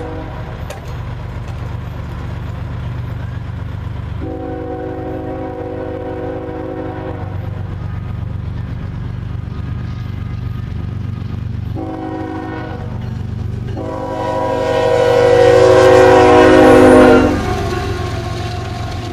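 Diesel freight locomotive's air horn sounding the grade-crossing signal, several notes together: long, long, short, long, growing louder as the train nears, with the last long blast the loudest. The locomotive then passes close by with a heavy rumble, beneath a low rumble that runs throughout.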